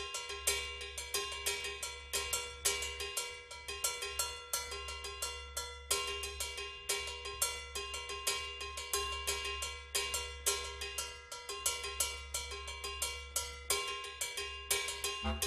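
Ensemble percussion playing a fast, even pattern of ringing metal strikes on a few fixed pitches, like cowbells, to open a minimal-music piece; brass instruments come in near the end.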